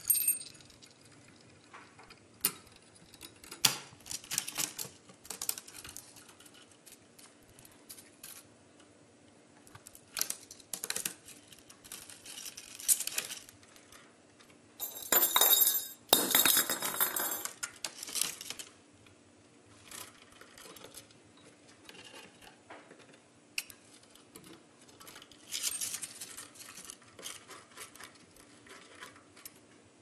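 Scattered light taps, clicks and clinks of a budgerigar moving about and pecking among its perch and toys, coming in short bursts, with the loudest and busiest spell about halfway through.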